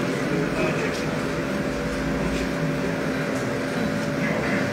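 Steady hum of woodworking machinery, a CNC wood lathe and its dust extraction unit running, with a few faint clicks.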